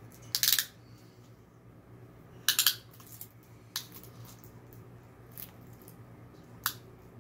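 Plastic film on a diamond painting canvas crinkling as hands smooth the rolled canvas flat, in a few short bursts: the loudest about half a second in and about two and a half seconds in, fainter ones later.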